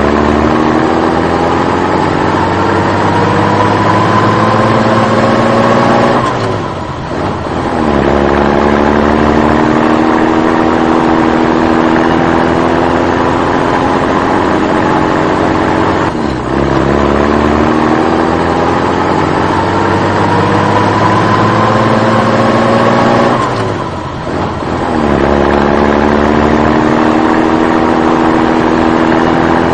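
Dubbed truck engine sound effect accelerating: the pitch climbs steadily for several seconds, dips briefly as if shifting gear, and climbs again. It does this three times in a repeating loop.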